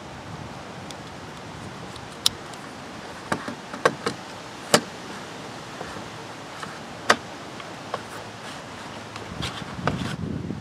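Sharp plastic clicks and taps, about nine of them at uneven intervals, as the leaf blower's recoil starter pulley, wound with new rope, is handled and pressed into its plastic starter housing, with a rustle of handling near the end. A steady background hiss runs underneath.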